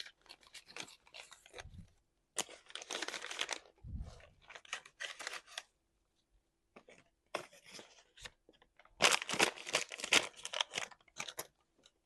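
Close-miked messy eating: meat being torn and chewed, in five bursts of crackly, wet tearing and crunching noise with short pauses between them. Two soft low thumps come about a second and a half in and about four seconds in.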